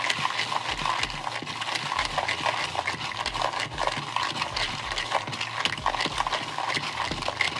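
Whole pecan halves, wet with an egg-white mixture, tossed by hand in a plastic mixing bowl: a dense, continuous clatter of nuts clicking against each other and the bowl.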